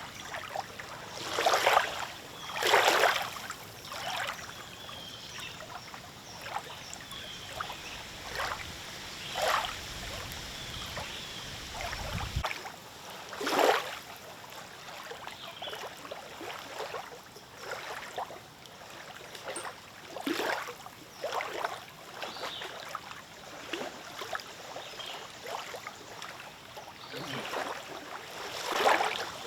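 Small lake waves lapping and splashing irregularly, a splash every second or two. A low rumble underneath stops suddenly about twelve seconds in.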